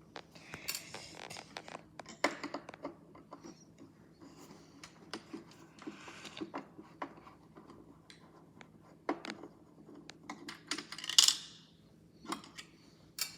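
Scattered small clicks, taps and scrapes of a screwdriver and screws being worked out of a plastic toy washing machine, with light metallic clinks and one louder scrape about eleven seconds in.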